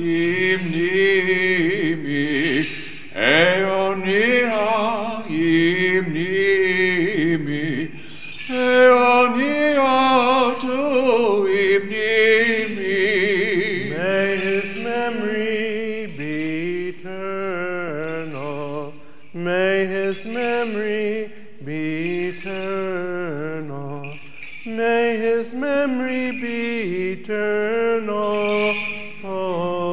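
Men's voices chanting an Orthodox funeral hymn: slow phrases of long held notes with a wavering pitch, broken by short pauses for breath.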